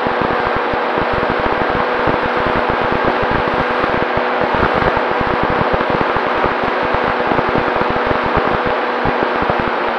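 Onboard audio of an FPV model aircraft in flight: its electric motor whines at a steady, nearly constant pitch under loud, rapid, irregular wind buffeting on the microphone.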